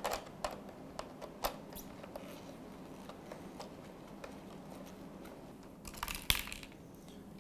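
Faint clicks and handling noise of gloved hands working a dishwasher's control board loose from its plastic console housing. There are a few light clicks in the first two seconds and a short scraping rustle about six seconds in.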